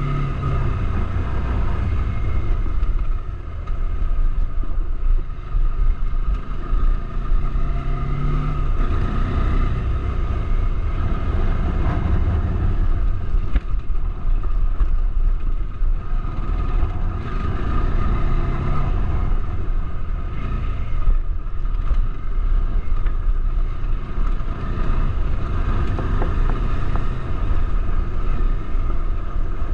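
Bajaj Dominar 400's single-cylinder engine running under way, its pitch shifting now and then with the throttle, mixed with wind noise on the microphone.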